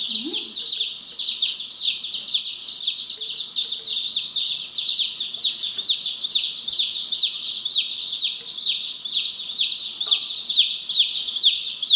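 Light Brahma chicks peeping nonstop, a crowd of high, short, downward-sliding peeps overlapping several times a second.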